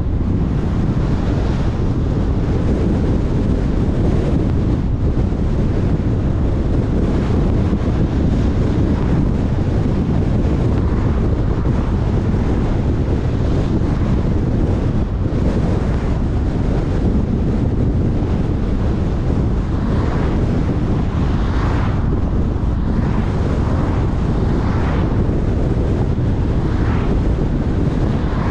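Steady wind rushing over the microphone and low road rumble from a car driving at speed. A few brief whooshes of oncoming cars passing come in the second half.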